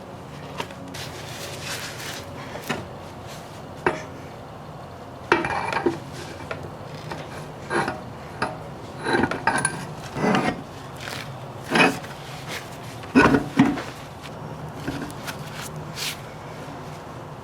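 Torque converter being fitted back into a Ford C4 automatic transmission: irregular metal clunks, clinks and scraping as it is pushed and turned into place.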